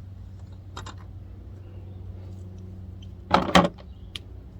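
A brief, loud clatter of something being handled about three and a half seconds in, after a couple of faint clicks about a second in, over a steady low hum.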